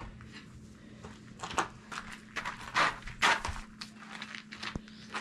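Footsteps scuffing and crunching on a gravelly dirt floor: a run of short scrapes, loudest around the middle, over a steady low hum.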